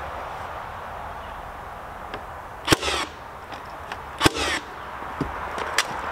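Ridgid cordless battery-powered framing nailer firing twice, about a second and a half apart, driving nails into framing lumber; each sharp shot has a short tail after it, with a few lighter clicks and knocks between.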